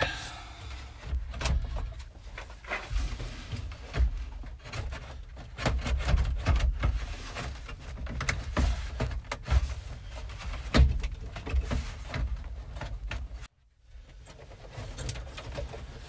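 Scattered clicks, taps and knocks of hands working loose the gauge cluster and its bezel in a 1972 Chevy pickup's dashboard, over a low rumble; the sound cuts out briefly near the end.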